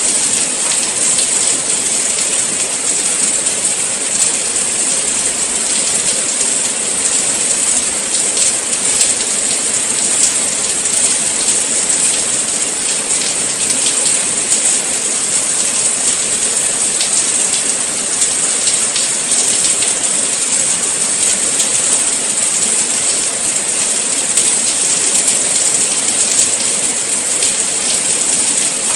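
Steady rain falling, a dense even hiss with the fine patter of drops hitting surfaces.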